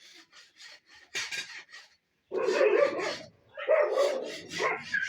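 A dog barking loudly several times, starting about two seconds in, after a run of quick light ticks.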